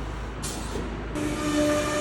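CNC router machinery: a short hiss, then about a second in a steady high motor whine starts, typical of the router spindle running, over a constant low machine hum.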